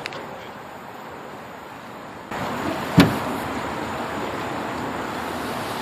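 Small boat moving on a river: a steady rush of water and wind noise that jumps louder about two seconds in, with one sharp knock about a second later.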